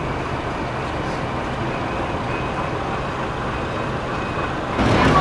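Steady rumble of idling engines, with a faint thin high tone through the middle. Near the end the sound jumps abruptly louder.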